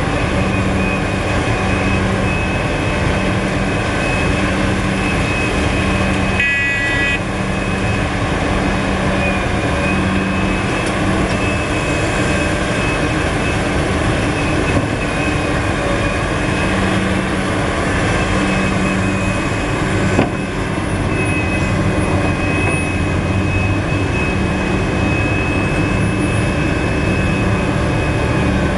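Heavy diesel engines of a Liebherr crawler excavator working a digging and loading cycle, with a loaded dump truck beside it, running steadily with a deep drone and a thin high whine. A short high-pitched tone sounds about six seconds in, and a sharp knock about twenty seconds in.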